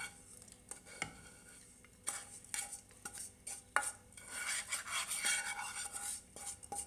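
A metal spoon scraping and knocking against a frying pan as a crumbly peanut laddu mixture is pushed out into a bowl: irregular clinks and scrapes, with a longer stretch of scraping a little past the middle.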